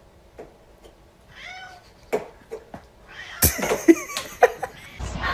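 A cat meowing several times, with scattered knocks and a loud clatter about three and a half seconds in.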